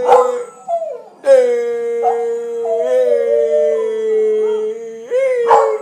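Welsh corgi howling. One howl breaks off just after the start. After a short cry, a single long howl holds for about four seconds, sagging slightly in pitch, and ends in a brief rising yelp.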